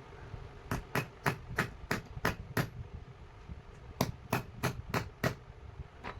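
Hammer tapping in two runs of regular blows. The first run is about seven strikes at roughly three a second, then there is a pause of over a second, then five more strikes.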